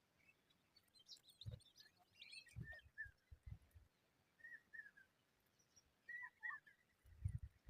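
Small birds chirping faintly in short high notes, with a quick flurry of chirps about two seconds in and more repeated chirps near the end. A few dull low thumps are heard among them.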